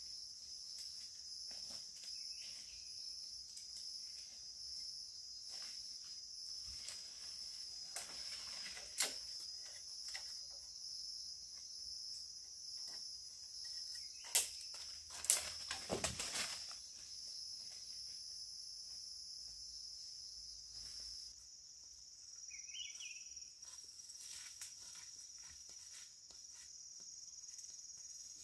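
Steady, high-pitched drone of an insect chorus, with a few sharp knocks around the middle and a short chirp near the end.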